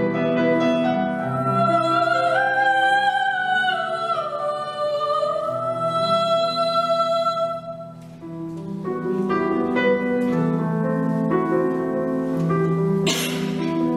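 Classical singing with piano accompaniment: a long held, wavering note that ends about eight seconds in, after which the piano carries on alone. A short hiss comes near the end.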